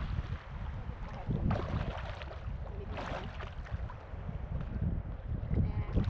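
Wind rumbling on the microphone aboard a boat, with a few brief rushes of water.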